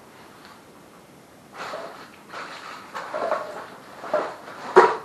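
Rustling handling noises as a roll of double-sided tape is fetched, with a sharp click near the end.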